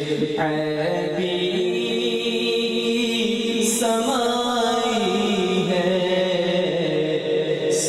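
A man singing an Urdu naat into a microphone, unaccompanied, his melody winding and sliding over a steady held drone.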